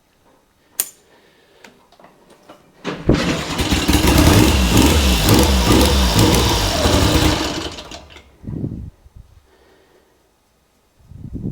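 A 1969 Triumph Trident's three-cylinder engine catches about three seconds in and runs with a wavering, uneven note for about five seconds, then dies away, just after its carburettor mixture screws have been reset on an engine running rich. A few sharp clicks come before it starts.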